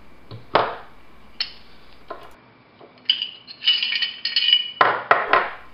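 Steel parts of an H&K USP .45 pistol being handled during field stripping: a few sharp clicks, then about three seconds in, a second or so of metal-on-metal scraping and ringing as the barrel is slid out of the slide.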